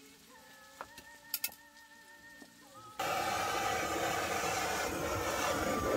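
Faint soft music with a few light clicks, then about halfway through the steady hiss of a handheld butane torch burning as its flame sears a steak on foil.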